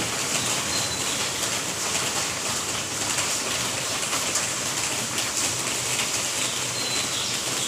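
Steady rain falling, a continuous patter of drops on hard surfaces.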